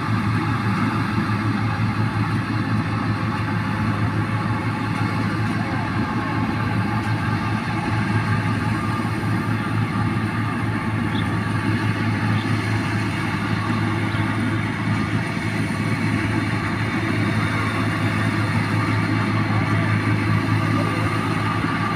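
New Holland 1545 combine harvester running steadily while it cuts and threshes rice, its diesel engine and threshing machinery making a continuous low hum.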